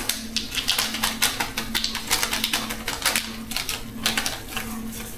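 Quick, irregular clicking and tapping of a spice container as coriander is added to the pan, several clicks a second, over a steady low hum.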